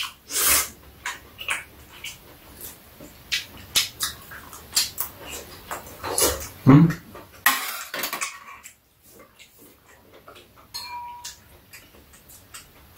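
Metal chopsticks and spoons clicking and scraping against bowls and plastic food containers during a meal, with mouth sounds of eating. A short voiced sound comes about seven seconds in, and the clicking thins out over the last few seconds.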